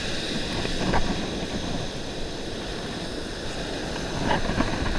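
Steady rush of surf and moving water, with wind buffeting the microphone.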